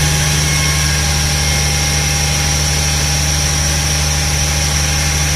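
Six-cylinder diesel engine of a feedwater pump running at a steady speed just after starting, with a steady high whine above the engine note.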